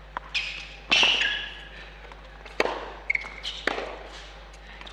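Tennis rally on an indoor hard court: sharp racket strikes and ball bounces every second or so, the loudest about a second in, with a few short shoe squeaks as the players run.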